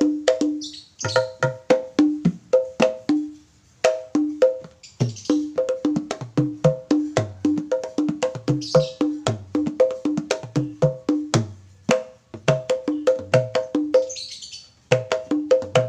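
Dangdut hand drums played in a steady groove: a blue conga-style kempul with new skins that have not yet fully settled, struck by hand and ringing on a low and a higher note, alongside a smaller lap drum. The groove breaks off briefly three times.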